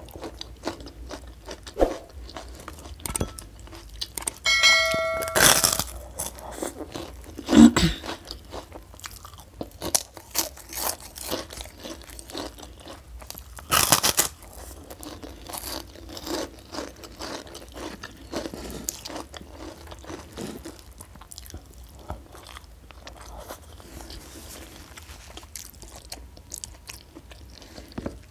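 Close-miked eating by hand: chewing and crunching with many small wet mouth clicks. A few louder crunches come about six, eight and fourteen seconds in.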